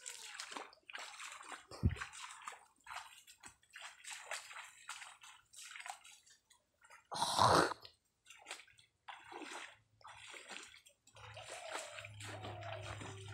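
Pond water splashing and sloshing in a run of short irregular splashes, the loudest about seven seconds in.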